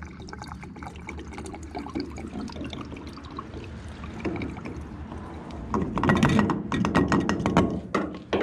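Sea Foam engine treatment poured from its can into a pickup's fuel filler neck: liquid gurgling and glugging, loudest in a stretch about six to eight seconds in.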